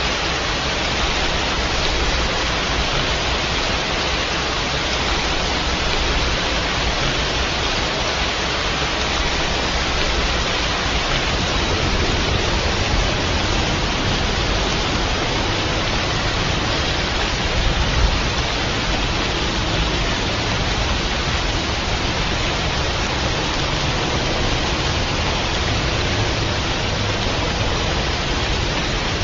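Steady rain, an even hiss with no separate drops standing out, with one brief low thump about two-thirds of the way through.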